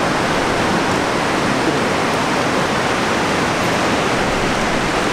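Kaveri River white-water rapids rushing, a steady, even sound of running water.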